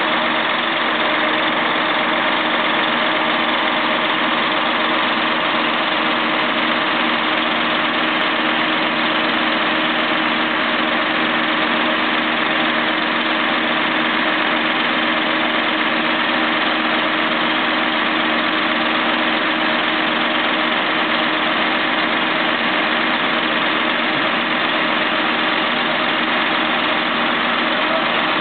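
Heavy truck's diesel engine running steadily, driving the hydraulics of its truck-mounted loader crane as the crane hoists a boat.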